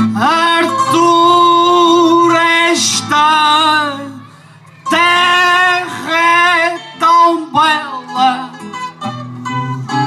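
A man sings long, drawn-out phrases of an Azorean cantoria ao desafio over plucked guitar accompaniment. The singing breaks off briefly about four seconds in, then resumes.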